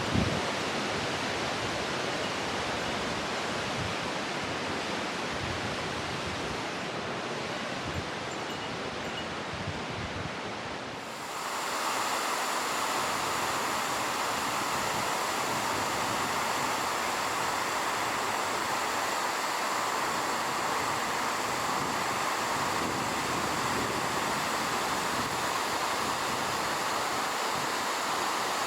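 Steady rush of water from a mountain stream with falls, with a few faint low knocks in the first part. About eleven seconds in it changes abruptly to a louder, brighter rush.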